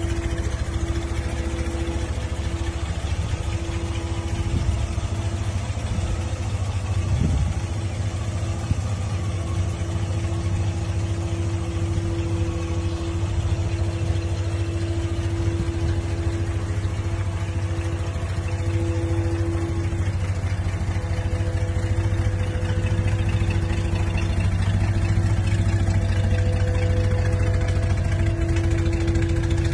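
1960 GMC Suburban's engine idling steadily, with a constant low rumble and a steady hum; a little louder near the end as the rear of the truck is reached.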